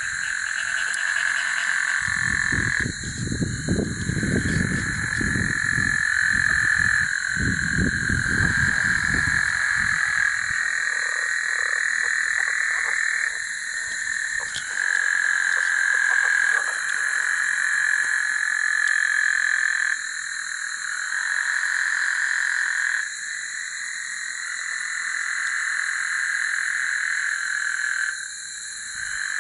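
Chorus of many frogs calling at night, a dense continuous trilling that swells and eases every few seconds. A low rumble runs under it for the first several seconds.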